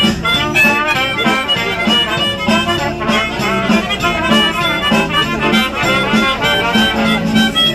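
Music: a continuous melody with a steady beat.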